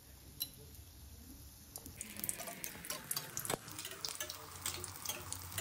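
A batter fritter (pua pithe) deep-frying in hot oil in an aluminium kadai. The oil sizzles and crackles faintly, growing denser about two seconds in as hot oil is spooned over the top of the fritter.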